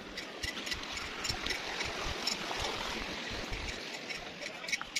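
A shallow stream running over rocks, a steady rushing hiss, with irregular clicks of footsteps on stones.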